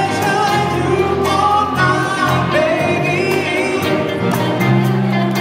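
Live band playing an upbeat pop song: a male lead vocal over electric guitars, keyboards, bass and a steady drum beat, heard from the dance floor of a large hall.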